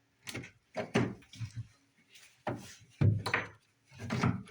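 Wooden baseboard trim knocking and clattering as it is pried loose and handled: about six separate knocks spread over a few seconds.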